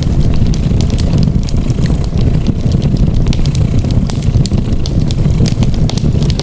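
Wood fire crackling with frequent sharp pops and snaps over a steady, dense low rumble, which is a cat's purring mixed in.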